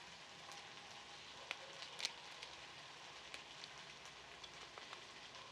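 Faint steady sizzle of sliced tomato frying in oil in a clay cazuela, with a few sharp little clicks scattered through it, the loudest about two seconds in.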